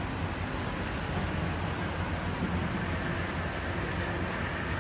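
Steady background noise: a low rumble under an even hiss, with no distinct events standing out.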